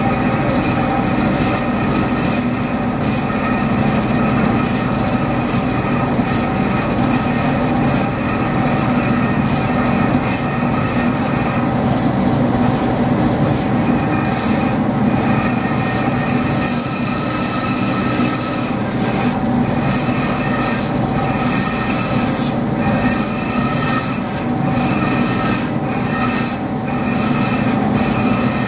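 DoAll vertical bandsaw cutting a metal plate along a contour: a steady rasp of the blade biting into the metal over the saw's constant running hum.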